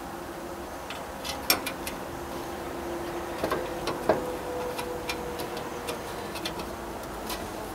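Irregular light clicks and taps from handling parts while test-fitting bolts through a tractor's radiator shroud, over a faint steady hum.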